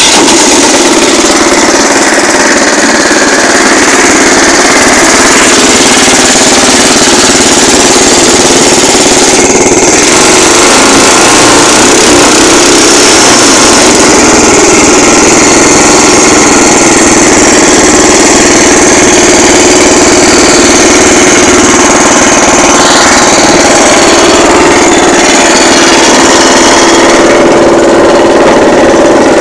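Small single-cylinder petrol engine of a homemade amphibious buggy running steadily, turning its CVT belt drive and roller-chain drive to the wheels.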